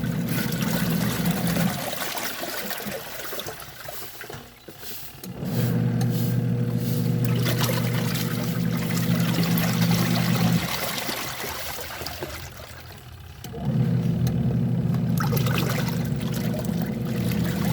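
Washing machine motor humming in runs of about four to five seconds, stopping for a few seconds in between, over steady sloshing and trickling water.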